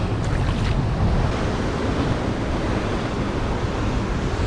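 Ocean surf breaking over a rocky lava shoreline, a steady wash of rushing water, with wind buffeting the microphone.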